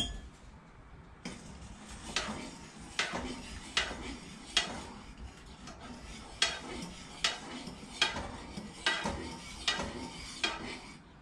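A fork stirring rice in a saucepan of hot water, its tines knocking against the metal pot about once a second, a dozen or so sharp clicks.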